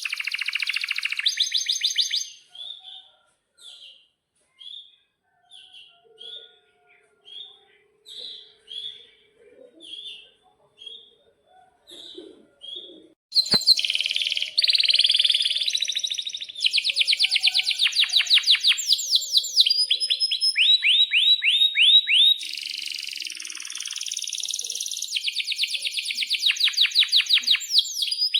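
Domestic canary singing: a burst of song, then a long run of single short chirps about one every three-quarters of a second, then, after a sharp click about halfway through, loud continuous song full of fast trilled rolls.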